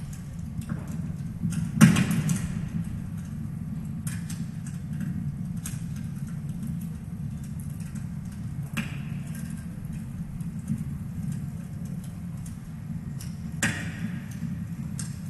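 Steady low rumble of outdoor ambience with scattered knocks and clicks, the loudest a sharp knock about two seconds in.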